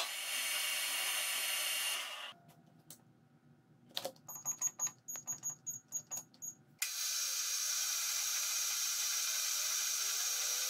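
Metal lathe running and turning a steel rod, a steady hiss. It stops, and a digital readout's keypad gives about ten short high beeps in quick succession as keys are pressed. The lathe then runs again with the same steady hiss.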